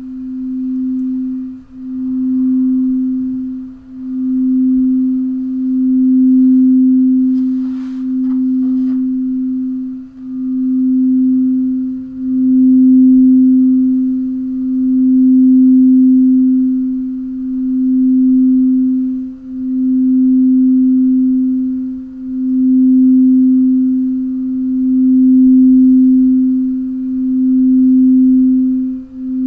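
A crystal singing bowl held ringing with one low, nearly pure tone and a faint octave above it. The tone swells and dips every two seconds or so, as the rim is rubbed. There is a brief soft rustle about eight seconds in.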